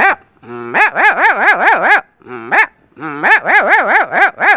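A man imitating a dog's barking with his voice: quick runs of yelping barks, about five a second, each bark rising and falling in pitch, with short breaks between the runs.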